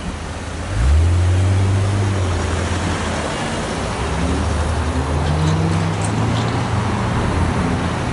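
Cars pulling away and driving across a railway level crossing, engines accelerating from about a second in, over steady traffic and tyre noise.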